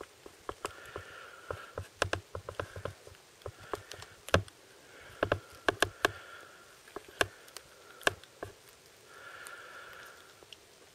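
Bengal kittens about two and a half weeks old suckling at their mother, with irregular wet clicks and smacks from their mouths and soft snuffling breaths between them.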